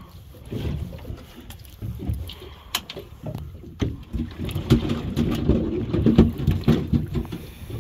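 Wind buffeting the microphone and river chop slapping against the side of a small metal fishing boat, with a few sharp knocks, the clearest about three and four seconds in.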